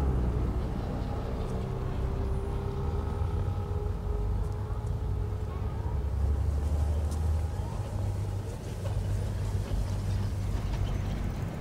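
Low, steady rumble of a street vehicle such as a tram, with a faint murmur of crowd voices.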